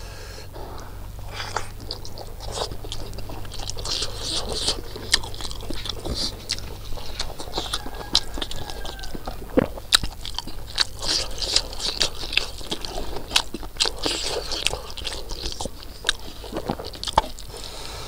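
A man chewing rice and buffalo innards curry, a dense run of wet smacking and crunching clicks from his mouth.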